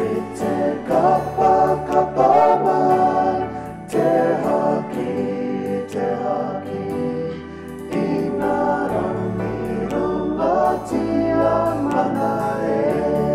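A children's choir singing a welcome song in te reo Māori over an instrumental backing with a steady beat.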